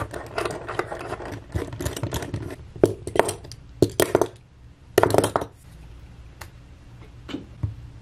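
Metal screen-repair clamps being loosened, pulled off a tablet's edges and set down on a desk: a run of clicks, knocks and rubbing, loudest a few seconds in, then a few light taps.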